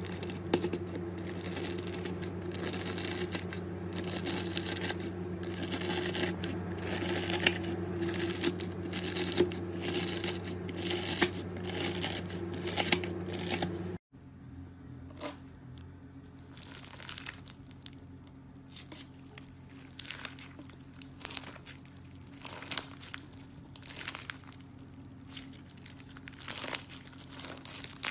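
White slime being cut with a thin blade, giving dense crackling and tearing sounds over a steady low hum. About halfway through it cuts to quieter, sparser crackles as hands squeeze slime packed with small plastic star-shaped pieces.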